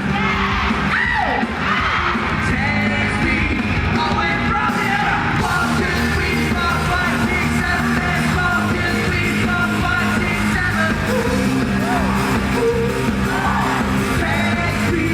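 Live rock band playing with a singer's voice over it, loud and steady.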